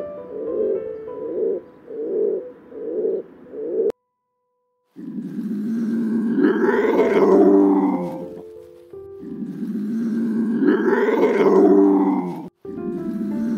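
Feral rock pigeon cooing in a steady run of low hoots, then after a brief silence a serval giving three long, loud calls of about three seconds each. Soft background music plays under both.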